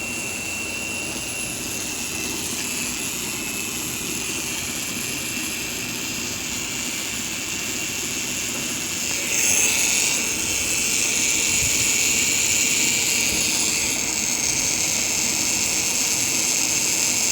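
Small DC motor spinning at high speed: a steady high-pitched whine with hiss. About nine seconds in it jumps louder and slightly higher in pitch, and it stays there.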